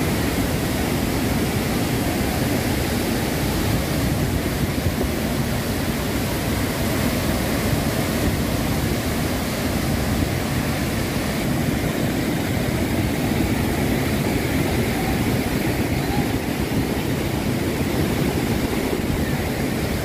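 A waterfall's water falling into a gorge with a steady, unbroken rush, strongest in the low range.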